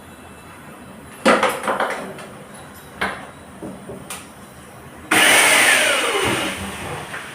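Metal kitchen-cabinet fittings of a pull-out pantry unit clattering with a quick run of knocks, two more single knocks, then a loud sliding rush of about a second with a falling whine.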